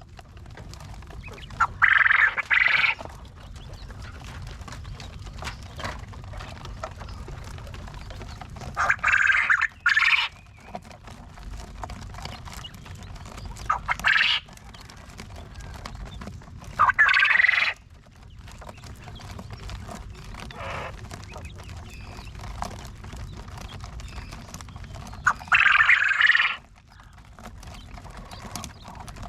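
Farm birds calling in five loud, separate bursts of about a second each, spaced several seconds apart, over a steady low background rumble.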